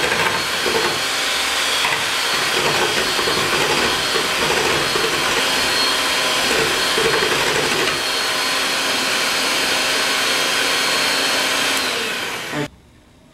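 Electric hand mixer running steadily with a thin motor whine, its beaters churning liquid egg-yolk custard in a glass bowl. It stops abruptly near the end.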